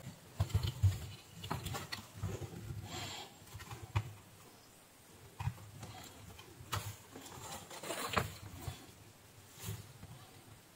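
Scattered light clicks, knocks and rustles of a circuit board and soldering iron being handled while a capacitor is desoldered from the switch-mode power-supply board.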